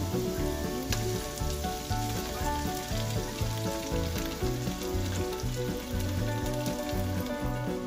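Eggs sizzling with small pops as they hit the hot oil in a pan of stir-fried vegetables, over background music with a steady beat.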